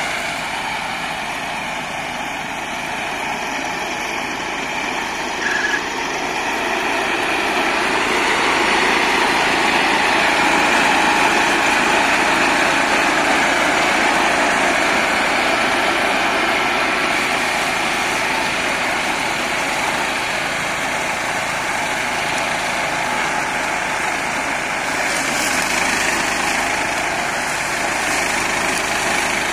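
Small petrol engine driving a belt-driven flail mulcher, running steadily under load as the flails chop grass, over the compact tractor's own engine; the sound grows somewhat louder about a third of the way in.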